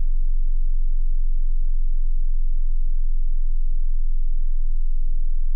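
Pure sine test tone from a high-to-low hearing-test sweep, now at the very bottom of its range: a steady, very deep hum below about 50 Hz.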